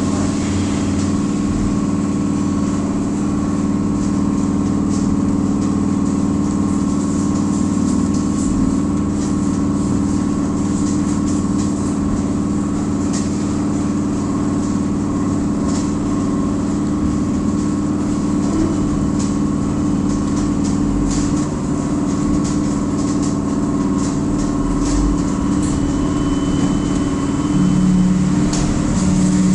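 Steady hum of a trolleybus heard from inside the cabin, made of several held low tones, with scattered light clicks. Near the end a lower hum swells louder.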